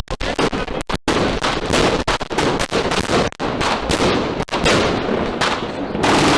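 A 144-shot, 25 mm compound fireworks cake firing a rapid, continuous barrage of launches and cracking bursts.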